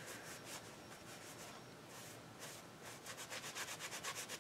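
A hand being wiped off: faint rubbing strokes, which speed up into a quick run of short rubs near the end.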